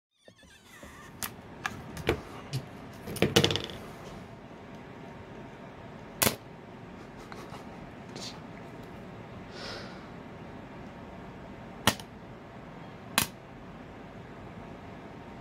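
Scattered sharp clicks and taps of small hand tools working on an opened iPhone 6's housing and logic board, over a steady low hiss, with the loudest cluster about three seconds in.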